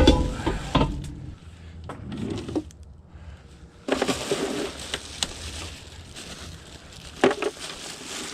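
Objects being handled and moved around: several heavy thuds in the first second, then rustling and scattered knocks, with a sharp knock or two near the end.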